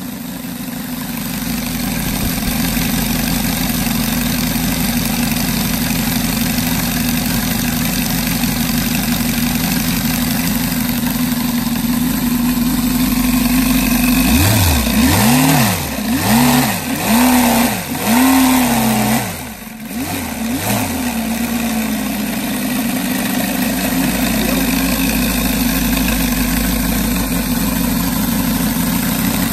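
UMS 7-50cc seven-cylinder four-stroke gas radial engine turning a 22x8 propeller, running steadily. About halfway through it is revved up and down five or six times in quick succession, then settles back to a steady run.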